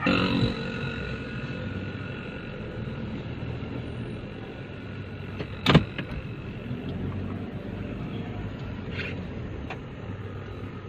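Car engine running steadily, with one sharp knock a little past the middle.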